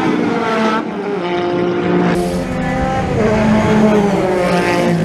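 Racing-car engines at high revs as a widebody VW Golf Mk1 race car passes close alongside another saloon. The engine note drops about a second in. The sound changes abruptly about two seconds in, after which engine notes rise and fall.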